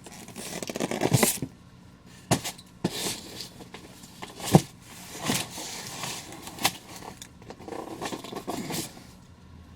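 Scattered knocks, taps and scrapes of a boxed statue and its packaging being handled and set down, with one sharper knock about halfway through.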